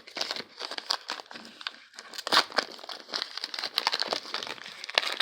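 Baseball trading cards being handled and flipped through one by one: an irregular run of rustles and sharp little flicks of card stock.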